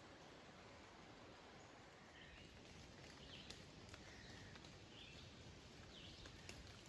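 Near silence: faint woodland ambience with a few faint, short bird chirps and light clicks.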